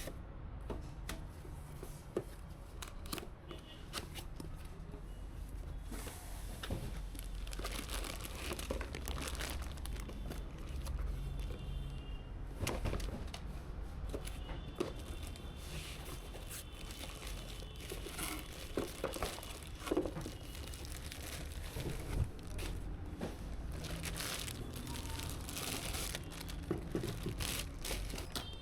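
Packaging crinkling and rustling while PC components are handled, with scattered light clicks and knocks throughout.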